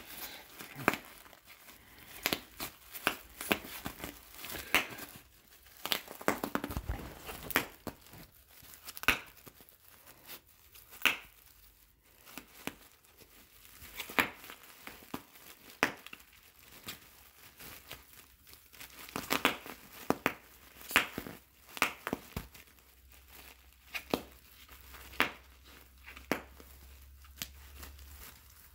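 Bubble wrap crinkling and popping as a corgi bites and chews at it. Sharp single pops come at irregular gaps of about one to a few seconds, with plastic crinkling in between.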